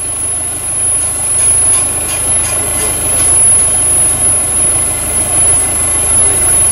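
Off-road 4x4 vehicle engine running steadily with a low hum, under a steady high-pitched whine and a few faint clicks.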